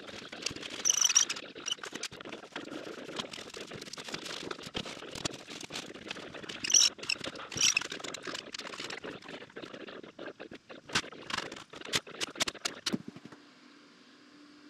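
Dense, rapid, irregular clatter of knocks and scrapes from drywall sheets being handled and fastened to the walls, with a few sharper high-pitched bursts. It cuts off near the end, leaving a faint steady hum.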